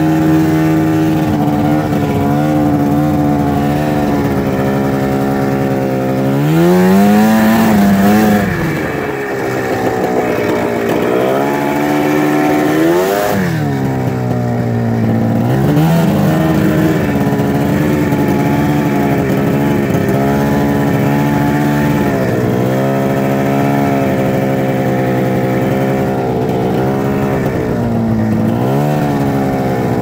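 Arctic Cat ZR snowmobile's two-stroke engine running, revving up and dropping back a few times: a long swell about six seconds in, another peaking around thirteen seconds, and short blips near sixteen seconds and near the end.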